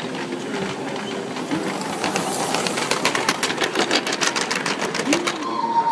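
A 16mm-scale garden-railway model train passing close by on the track. A brief hiss comes about two seconds in, followed by a couple of seconds of rapid, even clicking.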